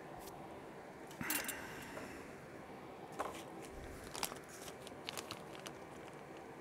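Handling noises on an electronics workbench as a circuit board is set down: a short rustle about a second in, then scattered light clicks, over a steady low hum.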